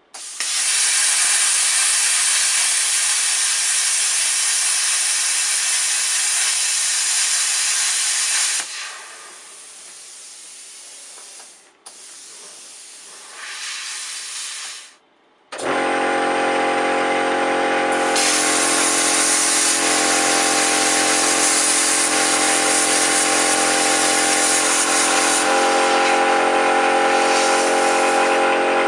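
Air plasma cutter cutting letters out of sheet metal: a loud steady hiss from the torch. The hiss drops away and comes back twice in the first half, then about halfway through it resumes with a steady multi-tone hum under it.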